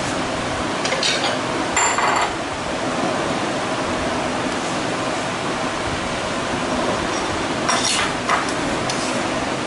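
Glass bowls and utensils clinking against each other and the marble counter, a few short knocks about a second in, a ringing clink around two seconds in and more near the end, over a steady background hiss.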